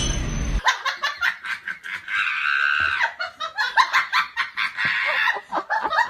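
A person laughing hard in quick repeated bursts, starting just after music cuts off about half a second in.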